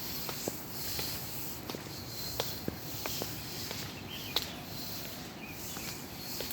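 Footsteps on a hillside path: irregular light scuffs and taps about one a second, over a steady high-pitched insect drone that swells and fades.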